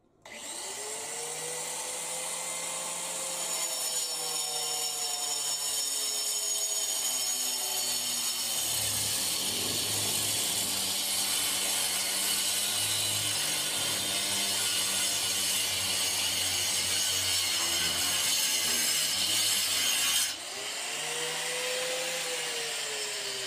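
Handheld angle grinder switched on and cutting a conduit groove into a brick wall: the motor spins up, then a steady, harsh, hissing grind as the disc bites into the brick. About twenty seconds in the grinding stops as the disc leaves the wall, and the motor's pitch rises briefly, then falls away.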